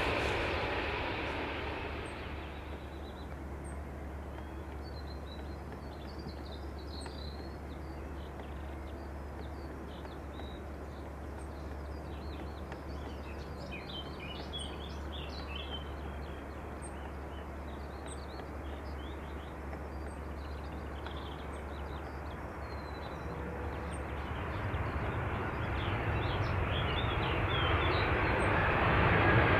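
Boeing 757 jet engines fading as the airliner moves away down the runway. A quiet stretch of low rumble and small birds chirping follows. Then the engines of a McDonnell Douglas MD-11 swell steadily louder as it rolls along the runway toward the microphone.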